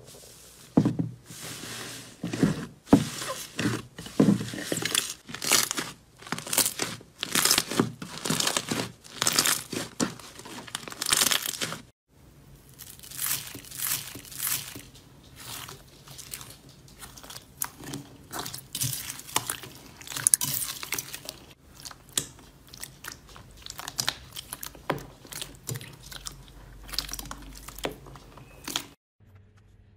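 Hands pressing and squeezing slime, making many short crackles and pops, several a second. After a brief break about twelve seconds in, there is softer crunchy squishing of slime mixed with foam beads. It stops just before the end.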